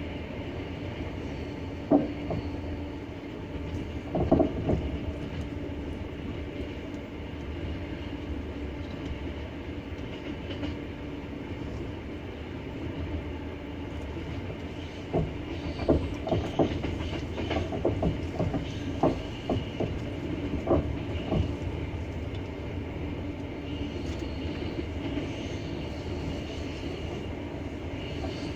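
Wheels of a double-deck passenger train rolling on the rails: a steady running rumble broken by sharp clacks as the wheels pass rail joints. There is one clack about two seconds in, another a couple of seconds later, and a thicker run of clacks in the second half.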